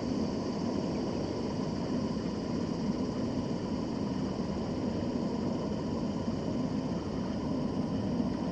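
Steady low rumbling background noise, even throughout, with no distinct sounds standing out.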